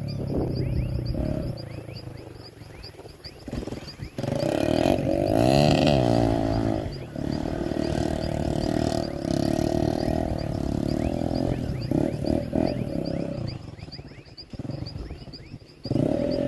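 Dirt bike engine running and revving as it is ridden through mud, the revs rising and falling, with a sharp swing up and down about five seconds in. The engine drops away for a moment near the end, then comes back loud.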